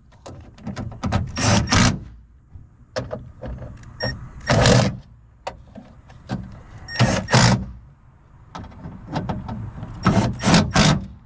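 Milwaukee M12 cordless impact driver running in four short bursts, tightening the mounting bolts of a car door's rear window regulator.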